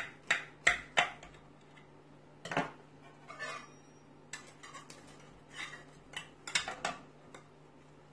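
A knife tip tapping and scraping against the bottom of a glass baking dish as it cuts through a baked tajine, about four quick taps in the first second. Then metal serving utensils click and scrape on the glass as a piece is lifted out.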